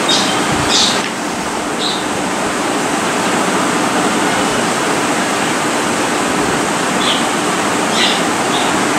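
Steady rushing background noise with a faint low hum, and a few brief faint ticks near the start and again near the end.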